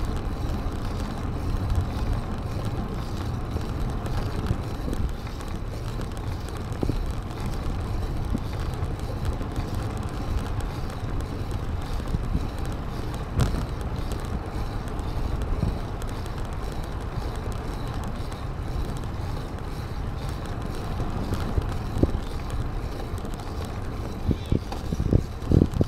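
Wind buffeting the microphone of a camera riding on a moving bicycle, a steady low rumble with the hiss of tyres rolling on the path. A few sharp knocks come near the end.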